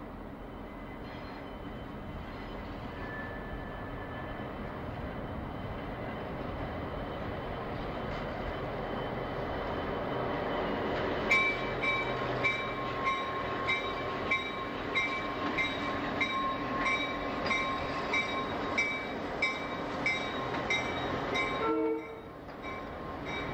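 Conrail diesel locomotives approaching and passing close by, their engine rumble growing steadily louder for about ten seconds. Then the wheels clack over rail joints about twice a second, with a steady high tone, as the units roll past; near the end the sound drops off.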